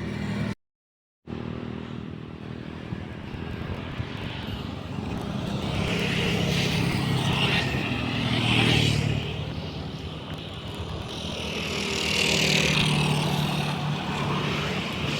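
Road vehicles driving past, engine drone and road noise swelling twice: the first pass is loudest about eight seconds in, the second about twelve seconds in. The sound cuts out briefly just under a second in.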